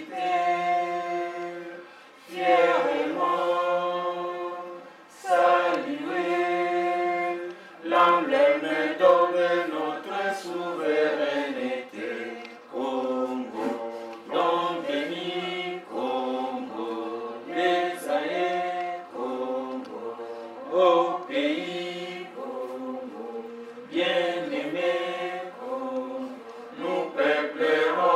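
A group of people singing together without accompaniment, in phrases of long held notes with short breaks between them.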